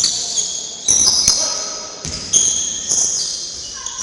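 Basketball play in a gym: sneakers squeaking on the hall floor, over and over, with the ball bouncing sharply about a second in.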